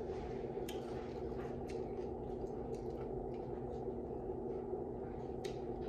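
Low steady room hum with a few faint clicks and soft squishes of saucy chicken pieces being handled over an aluminium foil tray.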